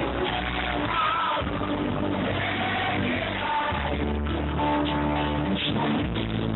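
Live band performance: a singer singing into a microphone over guitar and band accompaniment.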